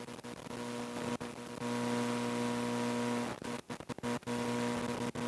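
A steady electrical hum with hiss, dropping out briefly a few times.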